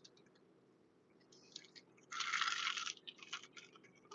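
Close-up crunching of crispy fried chicken being bitten and chewed: a loud crunchy bite about two seconds in, followed by several short crackles of chewing.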